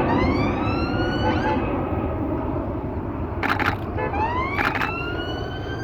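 Canon 5D Mark III shutter firing in two short bursts of rapid clicks, about a second apart, over steady outdoor background noise. A rising whine that climbs and levels off is heard twice, once at the start and again from about four seconds in.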